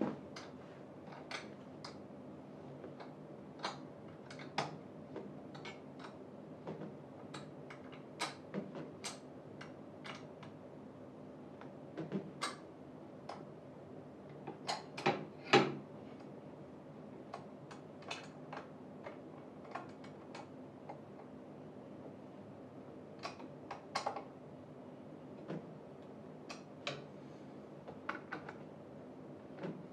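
Irregular metallic clicks and ticks of screws being fastened by hand with a tool, securing a gaming chair's footrest to the seat, with a louder knock about halfway through, over a faint steady hum.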